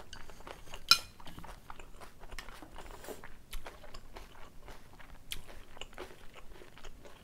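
Close-miked chewing and crunching of jajangmyeon with sliced cheongyang chili peppers, with small wet mouth clicks throughout. About a second in, a sharp click of chopsticks against the glass bowl rings briefly.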